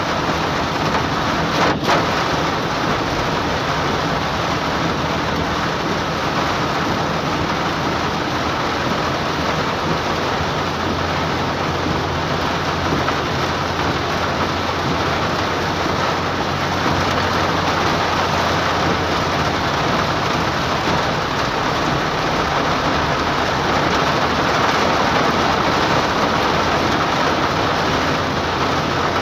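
Hard rain falling on a car's roof and windshield, heard from inside the moving car as a dense, steady hiss over a low steady drone from the car. A single sharp click comes just under two seconds in.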